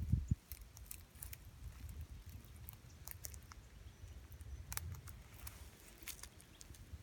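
Barefoot footsteps on dry sticks and leaf litter: scattered light crackles and small twig snaps, with a few soft thumps right at the start. A low rumble runs underneath.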